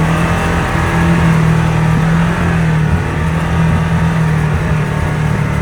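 ATV engine running steadily under way, holding an even pitch.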